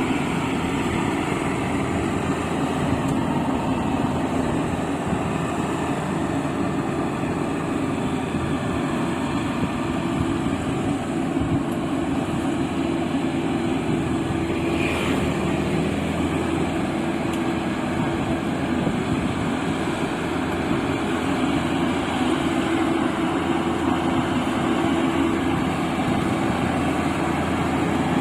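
Combine harvester's engine running steadily, a continuous even drone.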